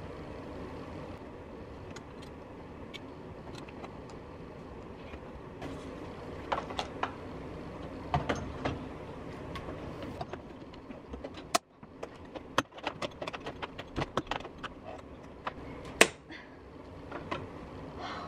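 A wood-foam venetian blind being fitted into no-drill hook brackets: handling clicks, knocks and light rattles of the headrail and slats. They are sparse at first and come thick and fast in the second half, with one sharp knock near the end, over a steady low background hum.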